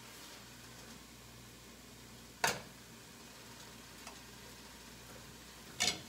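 Knife and fork clinking and scraping on a plate while cutting cooked pork, with two sharp clinks, one about two and a half seconds in and one near the end, and a lighter tap between them. A faint sizzle of food frying in a pan on the stove runs underneath.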